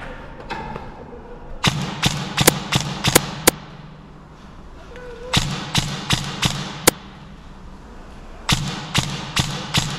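Airsoft electric rifle firing single shots in three quick strings of about five to seven shots each, a few shots a second, the gearbox whirring briefly with each string.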